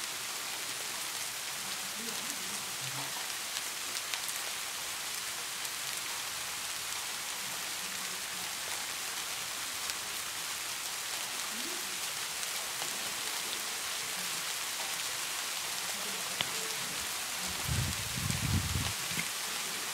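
Steady hiss of rain. Near the end comes a brief, low, muffled rumble.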